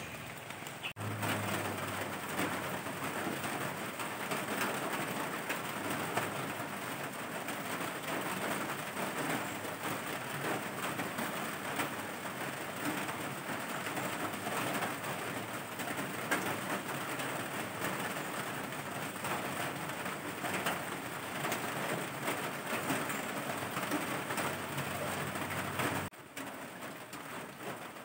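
Birds calling over a steady, dense hiss. The hiss drops away suddenly about two seconds before the end.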